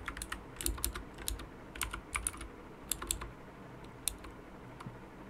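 Computer keyboard typing: irregular keystrokes in short runs with brief pauses between.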